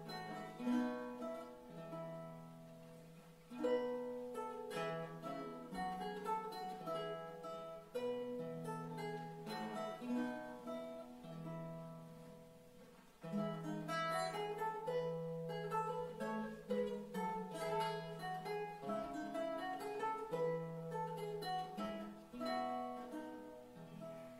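Renaissance lute playing a piece, plucked notes over a steady bass line, dying away near the end as the piece closes.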